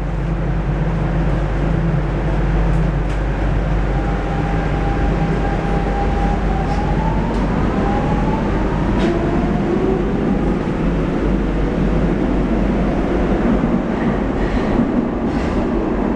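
Lisbon Metro train heard from inside the car, pulling away and running through the tunnel: a steady low rumble and rushing noise, with an electric motor whine that holds and then rises in pitch from about four seconds in as the train gathers speed, and a few light clicks.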